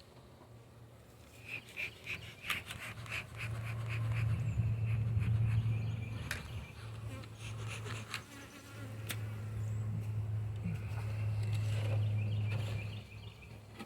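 Honeybees buzzing around an open hive. The low drone swells and fades as bees fly close by. A run of light clicks and knocks comes about two seconds in.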